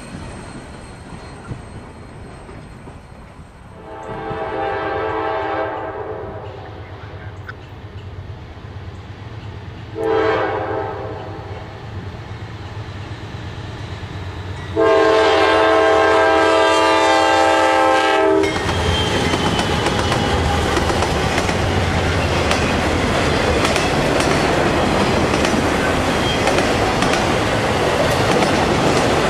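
Norfolk Southern freight locomotive's multi-chime air horn sounding for a grade crossing: a long blast, a short one, then a longer, louder one as the train nears. The lead diesels then pass, and autorack cars roll by with a steady rush and clicking of wheels on rail.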